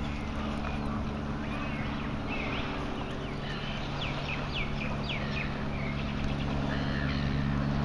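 A flock of gulls calling, a cluster of short cries between about two and six seconds in, over the steady hum of a boat's engine.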